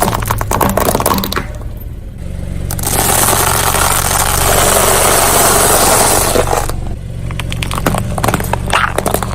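Car tyre rolling over and crushing dry instant noodles, with dense crackling and crunching at the start and again near the end, over the car's steady engine hum. In the middle stretch a loud even hiss of tyre and crushing noise takes over.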